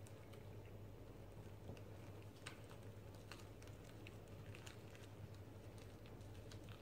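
Faint scattered ticks and soft rustling from gloved hands rolling a fresh spring roll up in softened rice paper, over a low steady hum.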